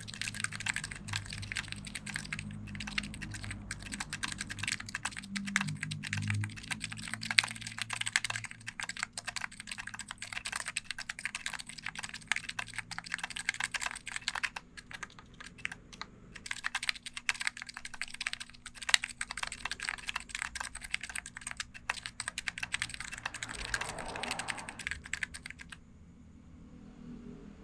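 Typing on a Matrix Lab 6XV2 Falcon Topre electrostatic-capacitive keyboard fitted with PBT keycaps, 35 g domes and silencing rings: a continuous fast run of keystrokes that stops shortly before the end.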